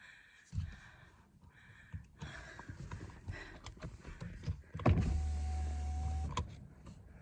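A car's electric power window motor runs with a steady hum for about a second and a half, starting and stopping with a click. Before it there are scattered small clicks and rustling of handling inside the car.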